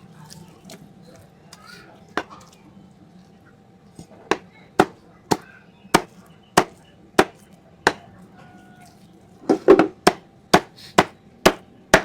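Knife chopping through chicken onto a cutting board: one chop about two seconds in, then a steady run of sharp chops about two a second, coming faster near the end.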